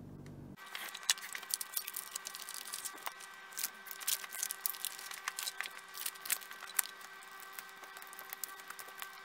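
Plastic wrapping being pried and peeled off a pack of 18650 lithium cells: a run of small sharp crackles and clicks that thins out near the end.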